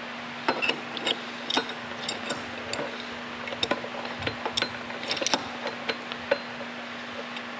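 A socket ratchet wrench clicking in short irregular runs as it spins a nut onto a steel shaft end, along with light metal clinks from the spacer and nut. A steady low hum runs underneath.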